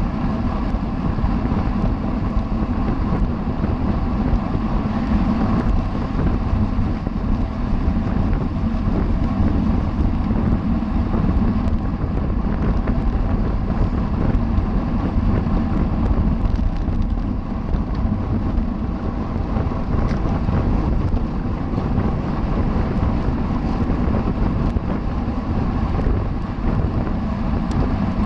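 Wind rushing over the microphone of a camera riding along on a racing bicycle at speed: a steady, loud rush with a deep rumble.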